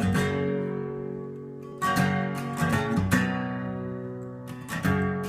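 Acoustic guitar strumming chords as the instrumental introduction to a song, each chord struck and left to ring, with new strums about every second or so.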